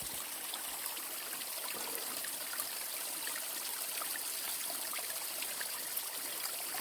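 A small waterfall running steadily, with an even rush of water.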